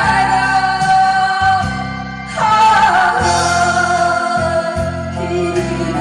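A woman singing a Korean ballad over a backing band, holding long notes with vibrato, with a new phrase entering about two and a half seconds in.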